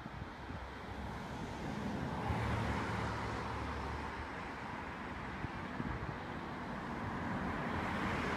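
Steady outdoor road traffic noise from vehicles on a nearby road, swelling about two seconds in and holding.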